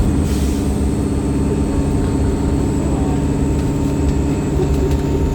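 Wright StreetLite single-deck bus engine running steadily at an even pitch under way, with a brief air hiss about half a second in.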